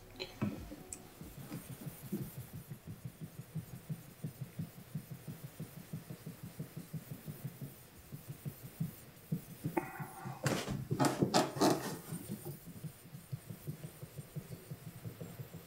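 Gyuto blade stroked back and forth on a soft uchigumori natural whetstone under fingertip pressure, making an even run of soft, low rubbing strokes: the polishing stage after the 3K stone. About ten seconds in there is a louder, brighter burst of sound lasting a couple of seconds.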